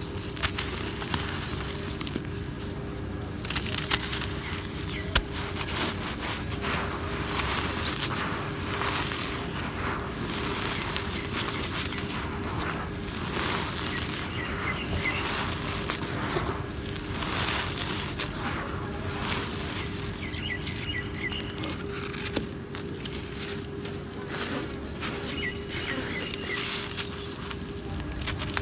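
Bare hands crushing and crumbling lumps of dry cement: dense gritty crunching and crackling, with loose powder sifting and pattering through the fingers. A bird chirps faintly a few times in the background.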